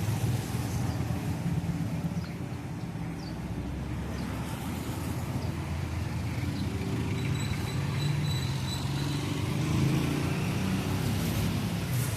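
Steady low rumble of a running engine, with a faint thin high tone for a couple of seconds past the middle.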